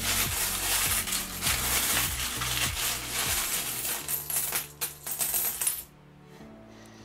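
Loose coins clinking and jingling together as a tub of mixed world coins is rummaged through, a dense clatter that stops abruptly near the end.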